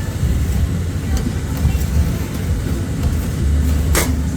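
Steady low rumble under a busy background haze, with one sharp knock about four seconds in.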